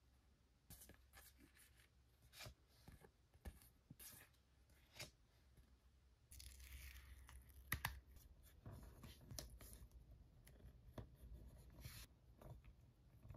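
Faint handling of paper sticker sheets and a cardboard backdrop: scattered soft crinkles and taps, a longer rustle about six seconds in, and a sharper tap just after.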